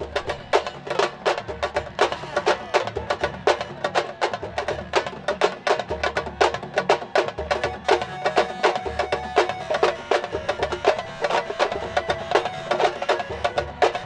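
Fast, dense sabar drumming: many sharp stick-and-hand strikes a second in an unbroken, driving rhythm.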